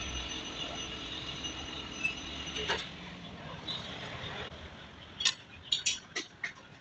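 Metal lathe running with a steady hum and faint high whine that dies down after about four seconds, followed by a quick series of sharp metallic clinks.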